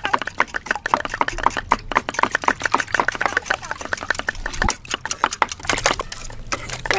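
Wire whisk beating raw eggs in a stainless steel bowl: quick, rapid clicking and scraping of the wires against the metal, with one heavier knock about two-thirds of the way through.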